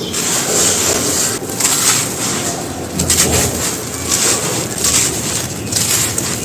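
Brittle material being crumbled and crushed by hand: a dense, continuous crunching and crackling that swells and eases about once a second.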